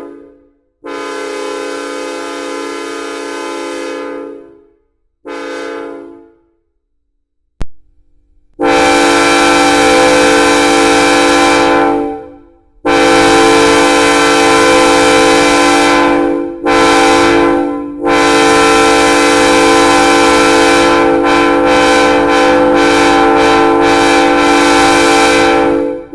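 Multi-tone locomotive air horn of a SunRail MP32PH-Q, sounding a chord in separate blasts. The first few seconds hold a quieter pair of blasts. After a pause and a click, much louder blasts follow in a long, long, short, long pattern, the grade-crossing signal.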